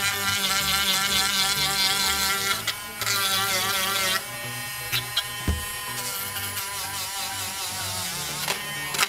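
Slite 12 V mini rotary drill (16,000 rpm) running with a small cutting disc, a high whine that wavers in pitch as the disc is worked against the edge of a printed circuit board. It drops in level about four seconds in, and a few light knocks follow a second later.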